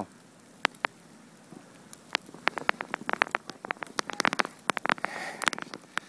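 Footsteps crunching through deep fresh snow: two lone clicks, then from about two seconds in a dense run of sharp crackles.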